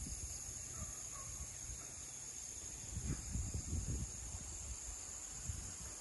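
Steady, high-pitched chorus of field insects, with low rumbling on the microphone that rises around three to four seconds in.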